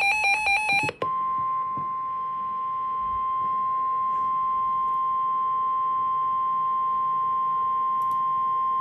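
Weather radio alert signal: a brief pulsed electronic data burst ends about a second in. It gives way to a single steady high beep near 1 kHz, the weather radio warning alarm tone announcing a severe thunderstorm warning. The tone holds for about eight seconds and cuts off suddenly near the end.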